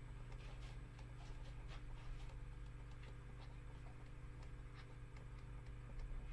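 Faint irregular ticks and light scratching of a stylus writing on a digital drawing tablet, over a steady low electrical hum.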